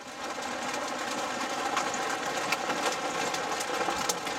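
Dime-sized hailstones striking the car's body and windshield as a few sharp, separate ticks, the loudest right at the start, over the steady hum of the idling vehicle and rain on the glass.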